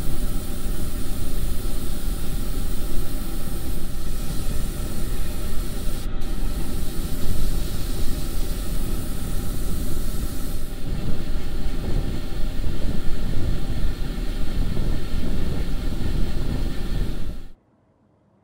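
Airbrush spraying paint with a steady air hiss over a constant low motor hum, the hiss dropping out for a moment about six seconds in and thinning after about eleven seconds. All sound cuts off abruptly near the end.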